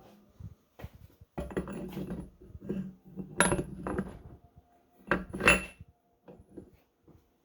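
Steel transmission parts clattering and clinking as they are handled and set down, with two louder ringing metal clanks about three and a half and five and a half seconds in.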